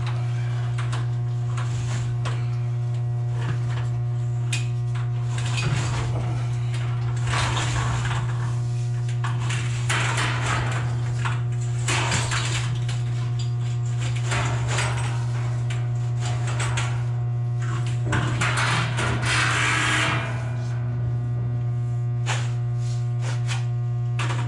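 Steady electrical mains hum from the switchgear, with repeated scraping and rustling as the outer sheathing is pulled off a cable; the longest, loudest scrape comes about three-quarters of the way through.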